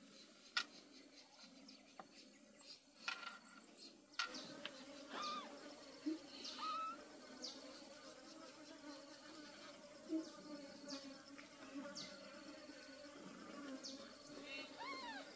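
Flying insects buzzing, a steady hum that sets in about four seconds in. A few sharp clicks come before it, and short high arching calls come near the end.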